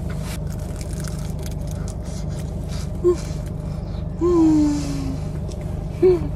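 A woman's short wordless 'mm' sounds while eating a cheese-filled hotteok, with one longer, falling 'mmm' about four seconds in. Under them is a steady low hum inside the car.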